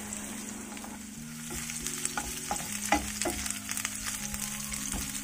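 Sliced onions sizzling in hot oil in a nonstick frying pan as they are sautéed. From about a second and a half in, a wooden spatula stirs them with a few scrapes and clicks against the pan.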